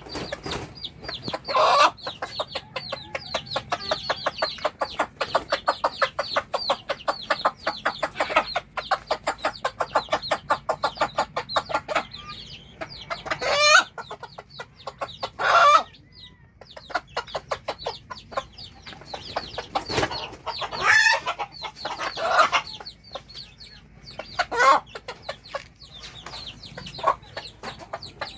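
Domestic hen clucking rapidly and repeatedly, the food call a mother hen uses to summon her chicks to eat. About halfway through the clucks thin out, and several louder, longer calls break in.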